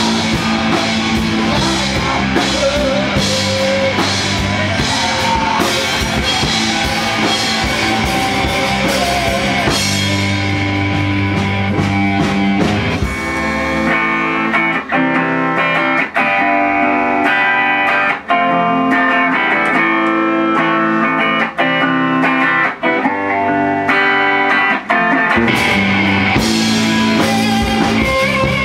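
Live rock band playing electric guitar, bass and drums. About halfway through, the bass and drums drop out and a clean electric guitar plays alone in short phrases. The full band comes back in near the end.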